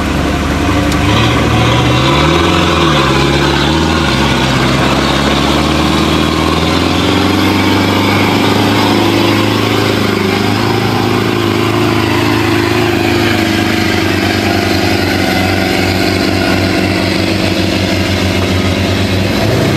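Modified Land Rover off-roader's engine revving under load as it churns through deep mud. The revs rise and fall twice a few seconds in, then climb and are held high and steady.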